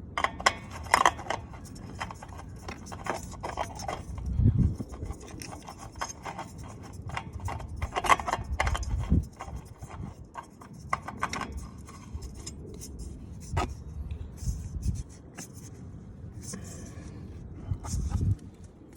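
Irregular clicks, knocks and scraping from things being handled, with a few dull thumps.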